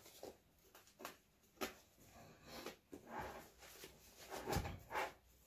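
Quiet handling noise of a sling bag and its hard-shell phone case: a handful of soft, short rustles and knocks spread out, the strongest two near the end.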